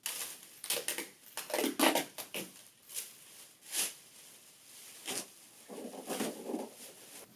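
Packaging being handled: irregular rustling, crinkling and soft knocks as a plastic cover is pulled off and a printer finisher unit is lifted out of its box.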